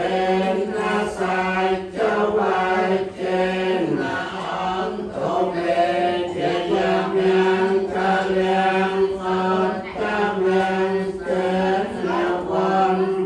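Group of voices chanting in unison, a Buddhist chant on a steady, near-monotone pitch with rhythmic syllables.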